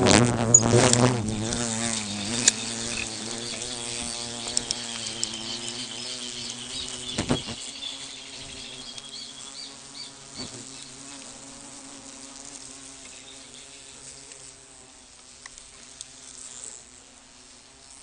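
Lechiguana wasps buzzing in flight close to the microphone, several at once, defending their nest against the intruding camera. The buzzing wavers in pitch, is loudest at the start and fades steadily. A few sharp ticks are heard in the first half.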